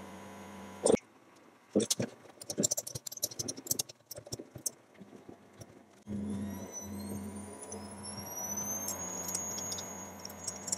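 Plastic quadcopter propeller parts clicking and rattling as they are handled and fitted onto the motors, a loud click about a second in, then a quick run of small clicks. After that, a steady low hum with a faint high whine that rises in pitch and then holds.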